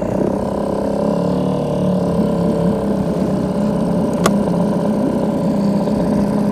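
Small outboard motor on a small bass boat running steadily at low speed, its pitch dipping slightly in the first couple of seconds before levelling off. One sharp click about four seconds in.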